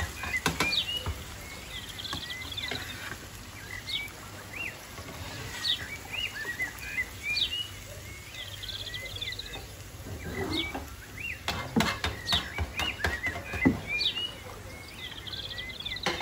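Small birds chirping and twittering throughout in short repeated calls and quick trills, with sharp clicks and taps of a metal spatula against a frying pan, most of them in a run near the end.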